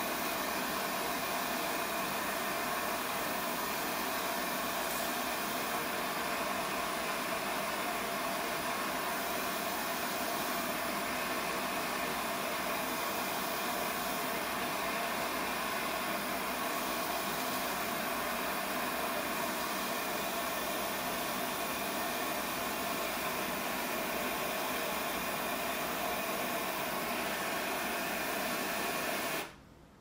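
Propane lampworking burner (Lopet, focused flame) burning with a steady hiss that stops abruptly near the end.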